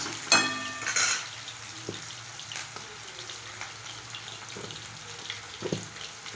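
Chopped onion, green chilli and capsicum sizzling steadily in oil in a steel kadai. About half a second in, a metal spatula scrapes the pan with a short ringing clang, followed by a few light knocks later on.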